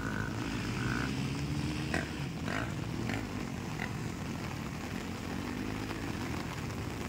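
Motocross dirt bike engines revving and easing off, rising and falling in pitch, over a steady hiss of rain.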